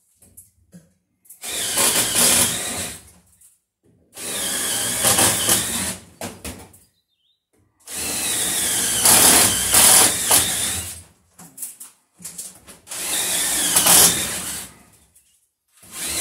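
Power drill running in four separate bursts of a few seconds each, boring into the wooden wall studs.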